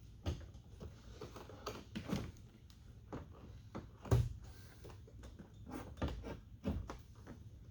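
Scattered knocks and clunks of a truck's door mirror being pulled and worked against the door while it is still caught on something, with the loudest thump about four seconds in.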